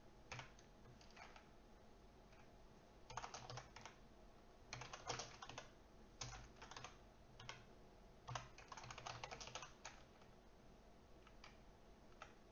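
Faint computer keyboard typing, in short bursts of keystrokes separated by pauses.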